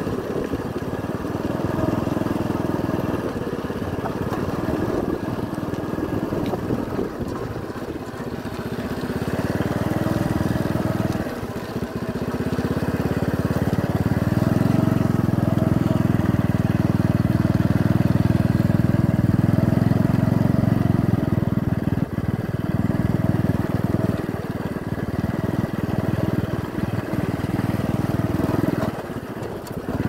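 Motor vehicle engine running as it travels along, with road and wind noise; the engine grows louder for several seconds past the middle, then eases.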